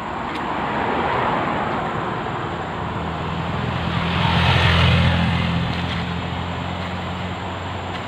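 A car driving past on the road: engine hum and tyre noise swell to their loudest about five seconds in, then fade, after a smaller swell about a second in.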